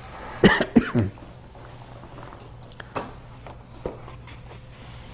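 A short burst of a man's voice without words, like a throat clearing, about half a second in. Then a few faint plastic clicks and crinkles as a plastic water bottle's screw cap is twisted open.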